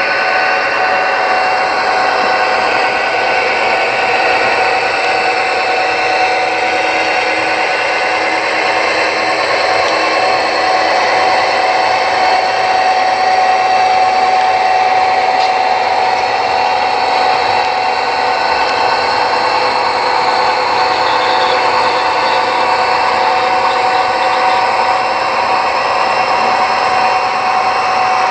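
HO scale model diesel locomotives and their freight train running along the track: a steady whine of the small electric motors and gears, with the rolling noise of the wheels on the rails.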